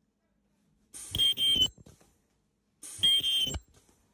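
Filter bag top welder making two weld cycles, about a second in and about three seconds in. Each is a shrill, steady high tone with a hiss, lasting under a second, after a brief softer lead-in, as the collar is welded onto the top of the filter bag.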